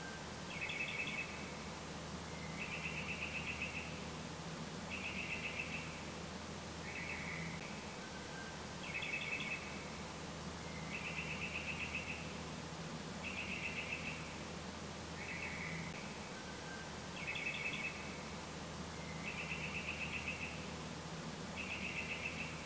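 Animal calls: short trilled chirps about every two seconds, some brief and sharp and some longer and finely pulsed, over a steady low hum.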